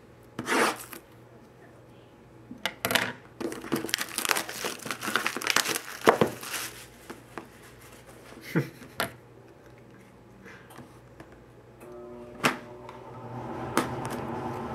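Scissors cutting and plastic wrapping crinkling and tearing as it is slit and pulled off a cardboard trading-card box, in several bursts with the longest in the middle, followed by a few sharp taps.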